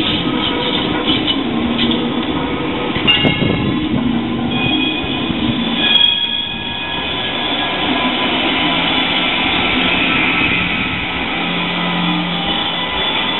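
Trams rolling along curved street track: steel wheels squeal with high, shifting whines on the bend over a steady rolling rumble. Near the end an older PCC tram passes close by.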